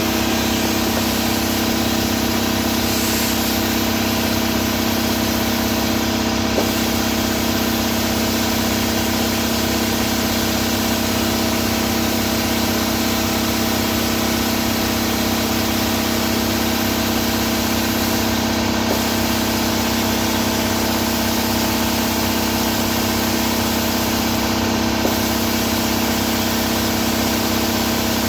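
Shop air compressor running with a steady, unchanging hum while a tire is inflated through an air chuck.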